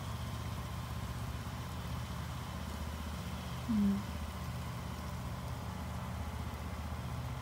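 Steady low mechanical hum of a motor or engine running, with a short rising sound a little over halfway through.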